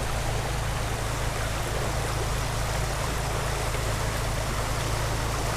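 A small creek's water running in a steady, even rush.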